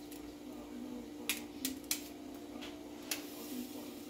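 A small spice jar being shaken and tapped over the counter: about four sharp clicks, three in quick succession a little after a second in and one more about three seconds in, over a steady low hum.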